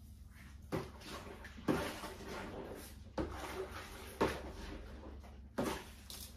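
O-Cedar spin mop bucket being worked by its foot pedal to wring the mop: five presses about a second apart, each a sharp clack trailing off into about a second of swishing as the wringer basket spins water out of the mop head.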